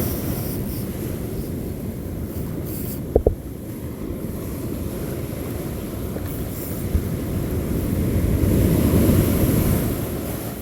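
Wind buffeting the microphone over the wash of beach surf, with one short knock about three seconds in.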